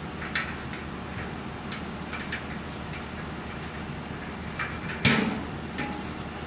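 Heavy road-construction machinery running steadily, with several sharp clanks over it, the loudest about five seconds in.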